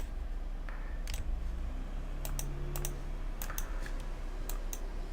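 Computer keys and mouse buttons clicked at irregular intervals, about a dozen sharp clicks, over a steady low hum.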